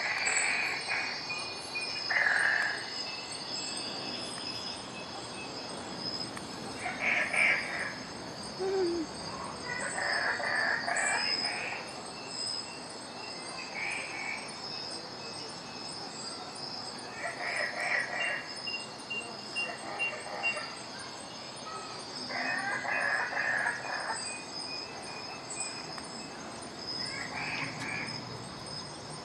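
Outdoor ambience: a steady, high, faintly pulsing chirring like crickets, with short calls every couple of seconds.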